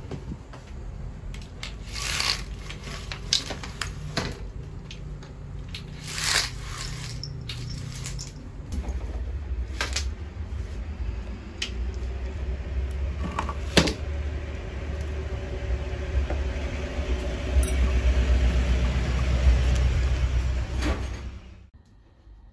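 Handling noise from a phone camera being moved around a small room: a low rumble with scattered clicks and knocks that cuts off suddenly near the end.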